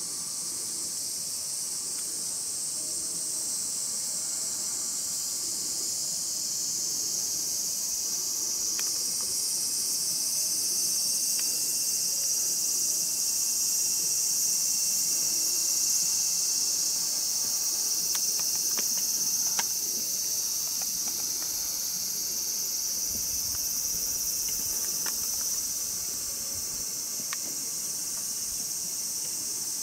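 A dense, steady, high-pitched chorus of insects, swelling somewhat in the middle and easing off near the end.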